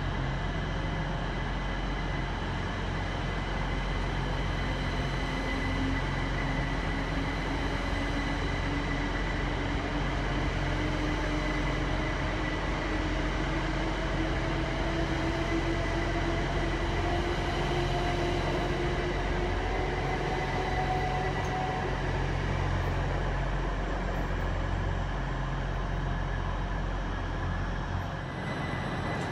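Class 387 Electrostar electric multiple unit pulling away and accelerating past, its traction motors whining in two tones that rise slowly in pitch over a steady running rumble.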